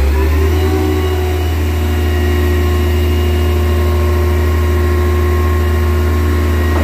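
Tadano GT-600EX truck crane's single diesel engine running under hydraulic load through the PTO as an outrigger beam retracts. The revs climb at the start, then hold steady and loud.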